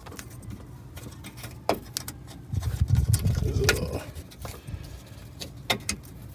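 Sporadic light clicks and metallic clinks of a bracket and bolts being handled and fitted in an engine bay, with a louder low rumble for about a second and a half near the middle.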